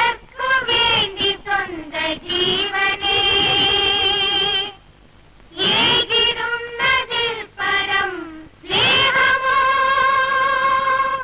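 Female voices singing a slow melody in long held phrases, breaking off briefly about five seconds in and again near nine seconds.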